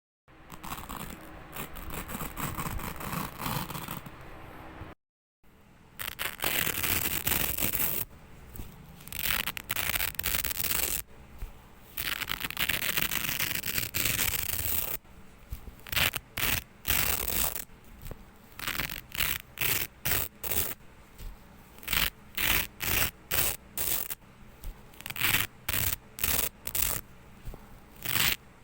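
Velcro hook-and-loop tape being ripped apart. First come several long rasping tears of a second or more each, then a run of short quick rips, roughly one to two a second.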